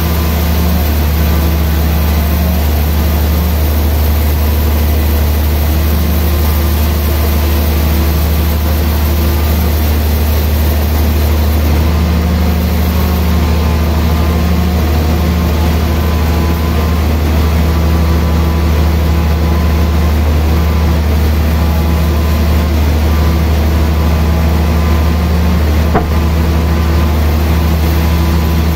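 Large vertical band sawmill running with a loud, steady low drone that holds an even level throughout.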